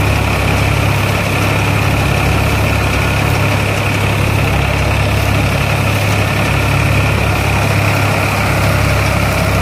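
Tractor diesel engine running steadily, a constant low hum with no change in speed.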